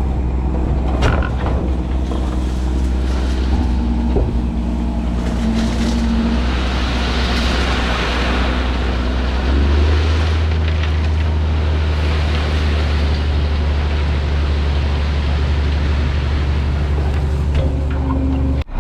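Loaded dump truck's diesel engine running under way with a steady low drone; its note drops and deepens about halfway through.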